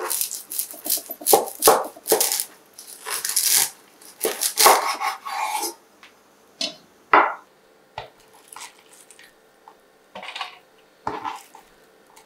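Food being prepared by hand: utensils and dishes tapping and clinking with rustling handling noises, in a dense run for about the first six seconds, then only scattered single taps.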